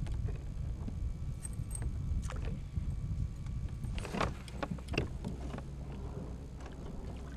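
Small clicks and clinks of fishing tackle being handled in a kayak, with a cluster of sharper clatters about four seconds in, over a low steady rumble.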